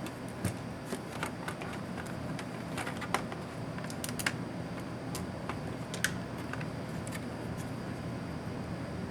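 Scattered small clicks and taps of hand tools and loose parts on a laptop's plastic case during disassembly, a dozen or so sharp ticks, the loudest about three, four and six seconds in, over a steady low hum.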